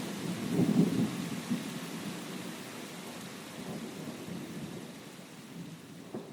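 Steady rain with a rumble of thunder that swells about a second in and then slowly dies away.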